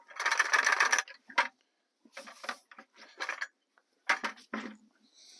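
Plastic five-gallon bucket being handled and set down on gravel: a quick rattling clatter in the first second, then a few separate knocks and scrapes.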